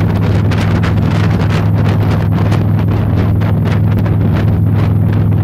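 Wind buffeting the microphone on a moving motorboat, over the steady low drone of the boat's engine.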